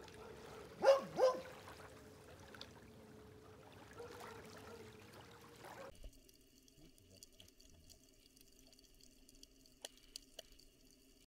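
Two short dog barks about a second in, over faint lapping of small waves. About six seconds in the sound changes to a muffled underwater recording with faint steady tones and a few sharp clicks near the end.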